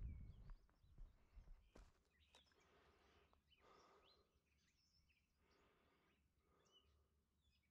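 Faint outdoor ambience: scattered short bird chirps over a soft background, with a few low footsteps on the trail in the first two seconds.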